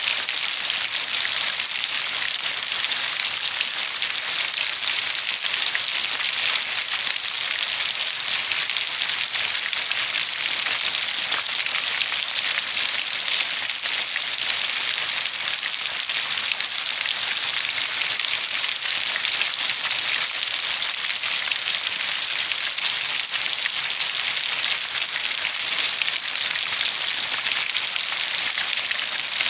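Steady rainfall: a dense, even hiss of countless drops, bright and high-pitched, with no breaks or lulls.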